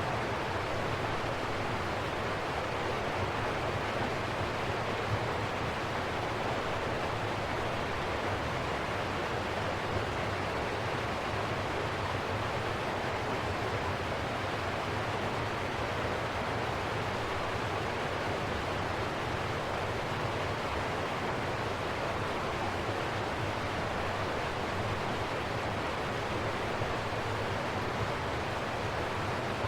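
River water rushing steadily, an even, unbroken wash of noise.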